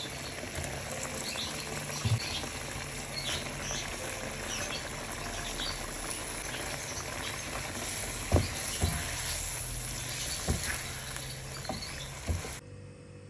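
Coconut-milk sauce with salted fish simmering and bubbling in a nonstick frying pan, with a few sharp knocks of the spatula against the pan as basil and tomato are stirred in. The sound cuts off suddenly near the end.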